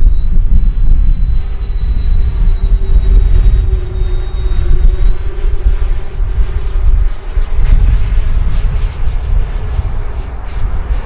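High whine of a large RC airliner's twin electric ducted fans in flight, stepping up in pitch twice around the middle and dropping back near the end as the throttle changes, over a heavy low rumble.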